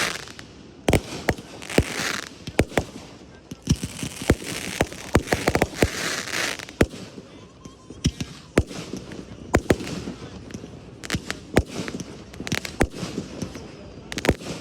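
Fireworks display: a quick, irregular series of sharp bangs from bursting shells, with hissing, crackling bursts in the first half.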